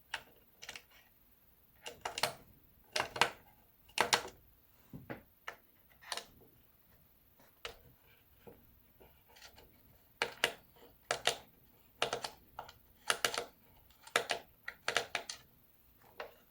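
Irregular sharp clicks and taps of small tools and screws being handled against the plastic case of a Yuneec ST-16 drone controller as it is taken apart.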